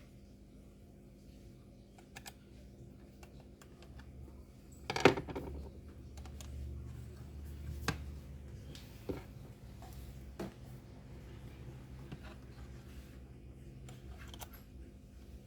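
Small clicks and knocks of laptop parts and tools being handled during a hardware fit, with one louder knock about five seconds in and a few lighter clicks after it.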